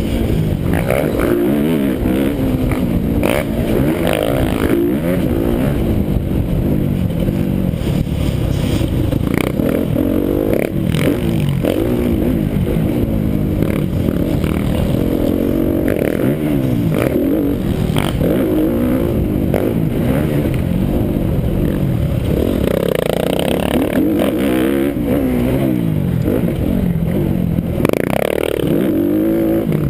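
Motocross bike engine heard close up from the rider's helmet, revving up and down over and over as the rider accelerates, shifts and backs off along the track, with scattered short knocks and clatter from the ride.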